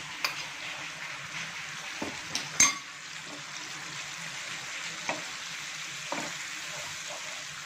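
Hot oil and spices sizzling steadily in a frying pan with curd just poured over them, with a few sharp knocks against the pan, the loudest about two and a half seconds in. Near the end a wooden spatula starts stirring the curd, with light taps on the pan.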